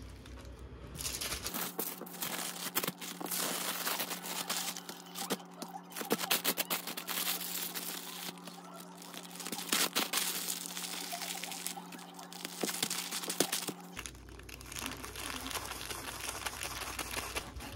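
Sheet of white sandwich-wrapping paper crinkling and crackling as it is folded and pressed tightly around a sandwich, a dense run of small sharp crackles, with a low steady hum underneath. About 14 seconds in the crackling stops and quieter rustling follows.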